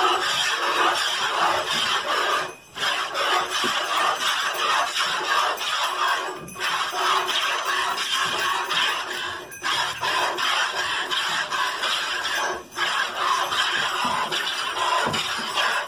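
A goat being milked by hand: rapid squirts of milk hiss into a plastic bucket, with short breaks about every three to four seconds.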